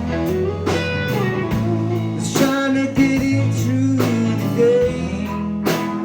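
Band music with guitar: a country-blues song played between sung lines.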